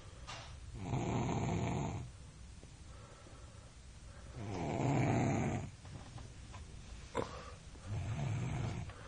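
A three-year-old boy snoring loudly in his sleep: three long snores, about three and a half seconds apart, with quieter breathing between them.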